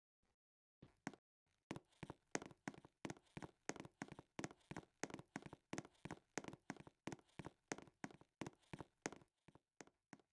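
Faint, rapid light tapping, about four taps a second, starting about a second in.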